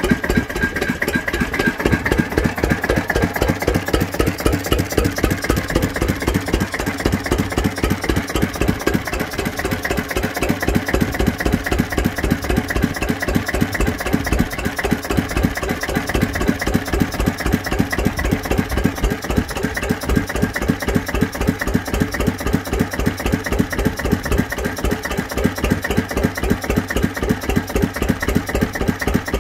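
McDonald Type C single-cylinder diesel stationary engine running steadily on its first run, with a regular, even firing beat.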